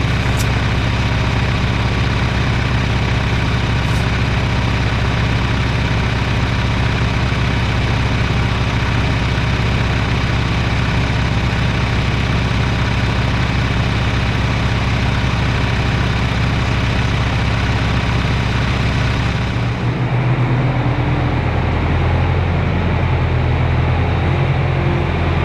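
An engine running steadily at a low, even note, which changes about twenty seconds in as the higher sounds fall away and the low tone shifts.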